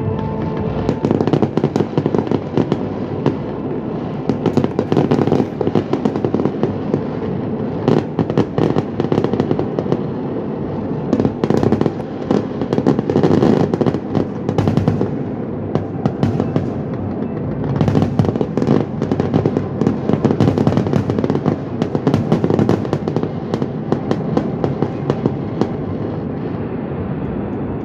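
Fireworks display: a continuous barrage of bangs and crackling from many shells bursting, building into denser, louder volleys several times.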